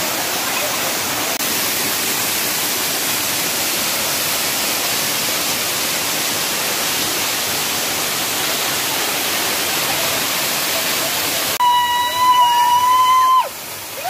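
Waterfall rushing steadily: a dense, even hiss of falling water. Near the end it cuts off abruptly, and a loud, high held note sounds for about two seconds, dropping in pitch as it ends.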